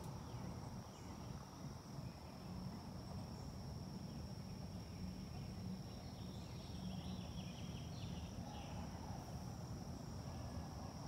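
Faint outdoor insect trilling: one steady high-pitched note that does not let up, over a low background rumble. A few faint chirps come about seven to eight seconds in.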